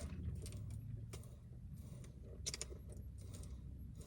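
Faint handling noises: a scattered handful of light clicks and taps over a low, steady background hum.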